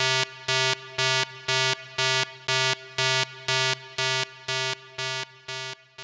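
Electronic countdown-timer beeps: one short synthesized beep repeating about twice a second, all the same pitch, slightly quieter toward the end.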